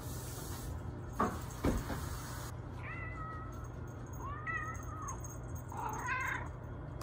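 Two sharp knocks a little after a second in, then a short-legged Munchkin cat meowing three times, the last call the loudest of the three.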